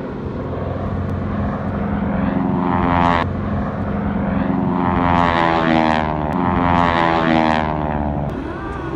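Aerobatic biplane's propeller engine flying its smoke-trailing routine overhead. The engine note swells and glides up and down in pitch as the plane manoeuvres, with a sharp drop about three seconds in and the loudest stretch in the second half.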